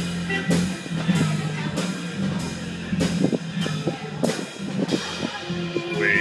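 Live blues band playing an instrumental stretch: drum kit with steady cymbal hits a little under twice a second, electric bass and electric guitar.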